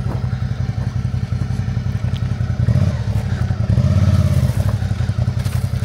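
Touring motorcycle's engine running at low revs as the bike rolls slowly, picking up briefly twice around the middle.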